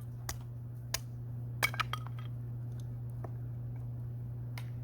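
Campfire crackling: a few sharp, irregular snaps and pops over a steady low hum.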